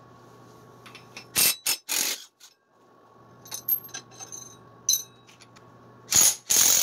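Cordless impact wrench hammering in short bursts on a scooter's rear clutch pulley nut, to undo it so the belt pulley can come off. A few brief bursts about a second and a half in and two longer ones near the end, with clinks of the socket and tool in between.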